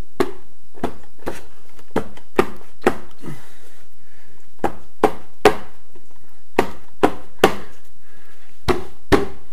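Wood-grain wall panel being knocked into place, a dozen or so sharp knocks in irregular groups of two or three. The panel is a tight fit and goes in only with difficulty.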